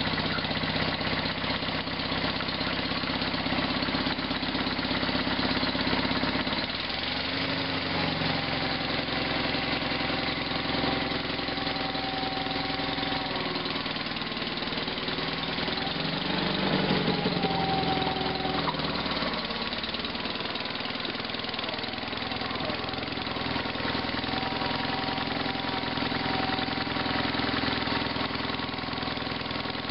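Sears GT/18 hydrostatic garden tractor's engine running steadily shortly after a cold start, its engine note shifting about seven seconds in and again around the middle as the tractor is driven off.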